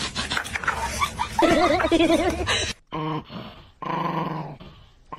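Dogs vocalizing in two short clips. First a dog's wavering, whining call; then, after a break, a Chihuahua growling in two short bouts.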